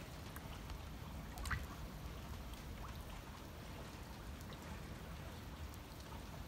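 Rain falling on standing floodwater: a low, even wash of water noise with scattered small drip-like ticks and one sharper tick about a second and a half in.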